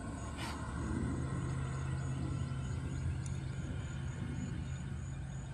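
Outdoor ambience: a steady low drone, with an insect chirping in an even rhythm about three times a second and a couple of faint clicks.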